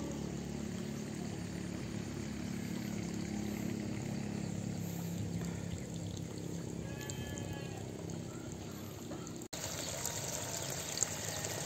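Water trickling and running steadily in muddy field channels, over a faint low hum, with a brief faint call about seven seconds in.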